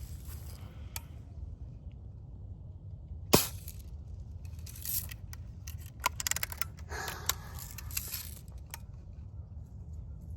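A single sharp BB gun shot about a third of the way in, then a few seconds later a run of clicks and rattles as the BB gun is handled, the shooter's routine of putting it on safety and reloading after each shot.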